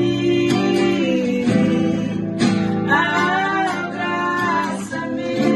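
Acoustic guitar strummed in slow chords, each chord ringing on for about a second, accompanying a worship song. A woman's voice sings a wavering line over it about three seconds in.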